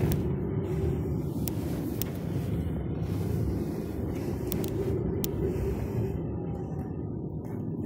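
Steady low rumble of tyre and road noise inside the cabin of a moving Tesla Model 3, an electric car with no engine sound, with a few sharp ticks.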